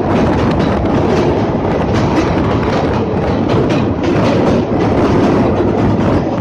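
Jammu Mail passenger train running over a steel truss bridge, heard from a coach's open door: a loud, steady rumble and clatter of wheels on rail with rapid clicks.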